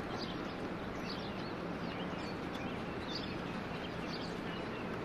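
Outdoor ambience: a steady hiss of background noise with small birds chirping now and then.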